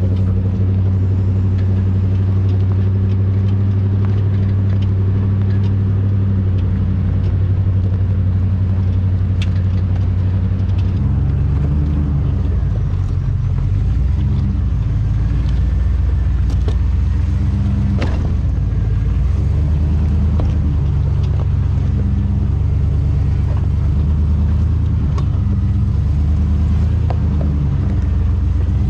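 2001 GMC Sierra 2500HD pickup driving on a rough dirt jeep trail, its engine giving a steady low drone that shifts in pitch about eleven seconds in. A few sharp knocks and rattles are heard along the way.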